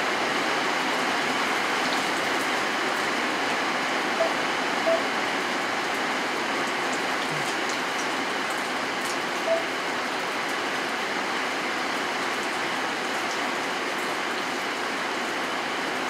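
Steady rain falling, a dense even hiss with faint scattered drip ticks. About four seconds in, twice in quick succession, and again near ten seconds, a short pitched pip stands out above the rain.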